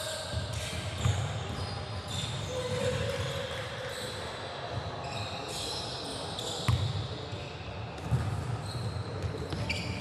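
Basketball bouncing repeatedly on a hardwood gym floor during play, with sneakers squeaking on the court, in a large echoing gym.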